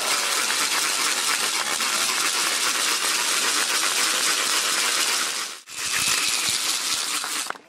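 Burning straw crackling and hissing steadily, a dense mass of tiny pops. It cuts out briefly about five and a half seconds in, then resumes.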